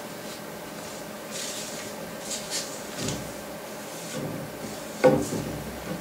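Hands pressing and rubbing gummed paper tape onto watercolor paper on a wooden table: scattered faint rubbing and rustling. A sudden louder knock about five seconds in rings briefly.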